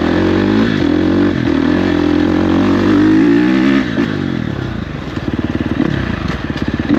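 Husqvarna FC350 dirt bike's single-cylinder four-stroke engine running under throttle, rising and falling in pitch. About four seconds in it drops to a slow, low chugging near idle.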